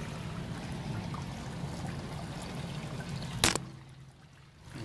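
Water pouring steadily from a water tank's open drain pipe onto concrete as the tank is emptied. A sharp click about three and a half seconds in, after which the sound drops low for about a second before the pouring returns.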